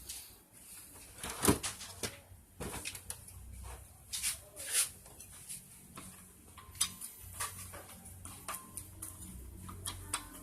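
Irregular metallic clinks and knocks from hand tools and small motorcycle engine parts being handled during a teardown, the loudest about a second and a half in and again around four seconds in.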